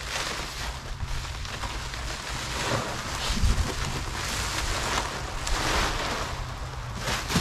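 Clear plastic stretch wrap being torn off a pallet and bunched up by hand, a continuous crinkling rustle, over wind rumbling on the microphone.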